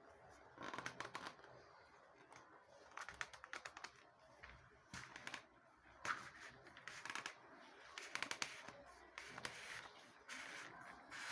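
Packaging handled by hands during an unboxing: repeated bursts of rapid crinkling and clicking, several times over, with short pauses between.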